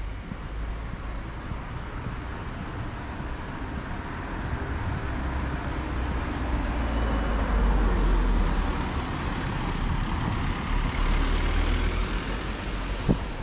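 Street traffic: a motor vehicle passes, its rumble swelling to a peak about halfway through and easing off, with a sharp click near the end.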